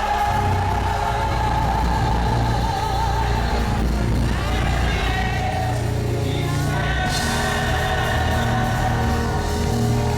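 Live gospel worship music: a singer holds long, wavering notes over a steady bass line.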